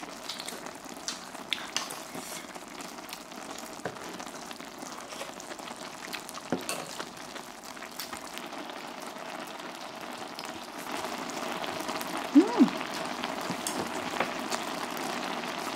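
Budae-jjigae (ham and sausage stew) bubbling and sizzling in a shallow pan on a tabletop burner: a steady crackling hiss with scattered pops that grows louder after about eleven seconds. About twelve seconds in there is a brief squeak and a couple of sharp clinks.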